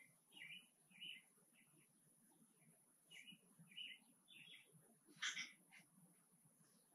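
Small bird chirping faintly: a string of short, high chirps at an uneven pace, with one louder, sharper chirp a little after five seconds in.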